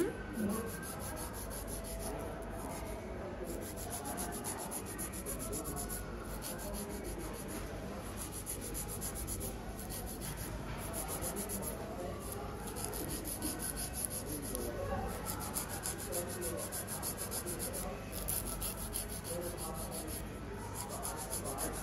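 Fingernail being filed by a hand file: fast rasping strokes in bouts, with brief pauses between them.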